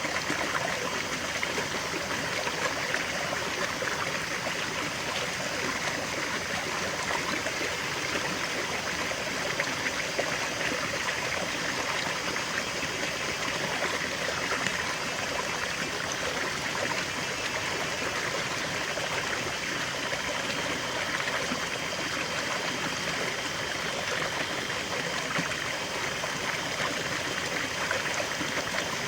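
River water flowing steadily over stones, a continuous rushing and babbling with small trickling splashes.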